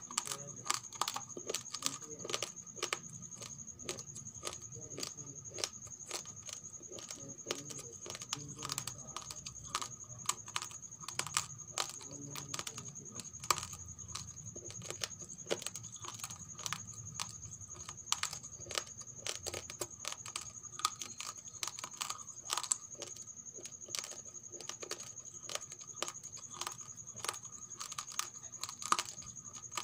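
Raw rice grains crunching between the teeth as they are chewed: a stream of sharp, irregular cracks, several a second.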